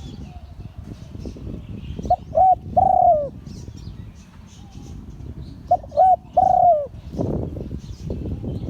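Spotted dove cooing: two phrases about three and a half seconds apart, each two short coos followed by a longer, louder one that drops at its end.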